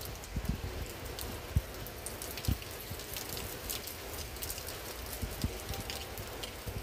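Heavy storm rain with a steady hiss and many scattered sharp taps of drops striking a high-rise window and its wet metal railing. A few low thumps stand out, one about one and a half seconds in and another about a second later.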